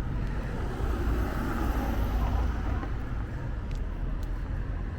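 Road traffic: a car passing, a little louder between about one and two seconds in, over a steady low rumble.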